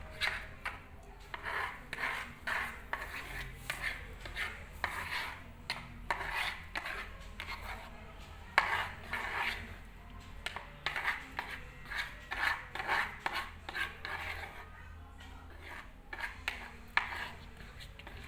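A spoon scraping and stirring in a bowl of slime mixture in short repeated strokes, roughly two a second.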